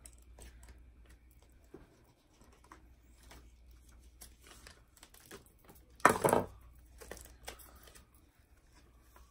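Flex Tape, a rubberized waterproof tape, being cut, peeled and pressed onto a cracked plastic cup: faint rustling and crinkling of the tape and its backing, with one short, loud tearing sound about six seconds in.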